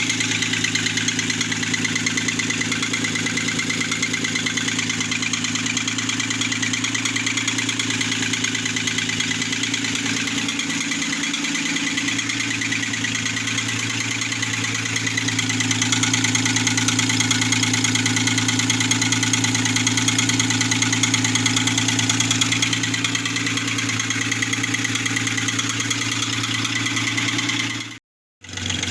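Opel Omega B V6 engine idling with a fast, steady knock, which the owner takes for a knocking piston. The sound cuts out briefly near the end.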